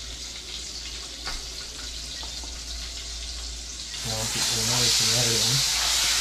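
Pieces of lionfish lowered into hot oil in a frying pan, setting off loud, steady sizzling about four seconds in.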